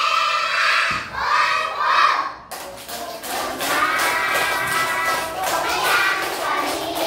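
A class of young children's voices chanting together in unison. About two and a half seconds in the sound changes abruptly to a denser chorus of children's voices broken by many short sharp sounds, like claps.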